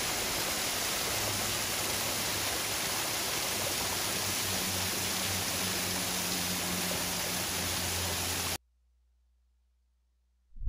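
Small waterfall: a thin veil of water falling over a sandstone ledge and splashing onto the rock below, a steady rush. It stops abruptly about eight and a half seconds in.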